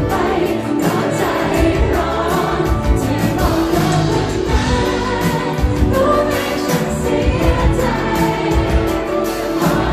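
Live pop song: a woman singing with a band, drums keeping a steady beat.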